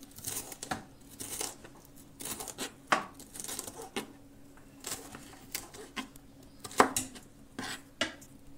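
Kitchen knife slicing a green bell pepper into strips on a plastic cutting board: irregular knocks of the blade on the board, about two a second, with the scrape of the blade through the pepper between them.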